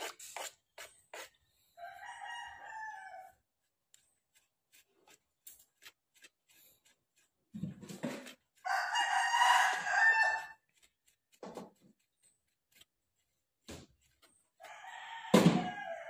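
A rooster crowing three times: a short call about two seconds in, a longer and louder crow around nine to ten seconds, and another starting near the end. Short sharp clicks and taps, from a knife on a plastic cutting board, fall between the crows.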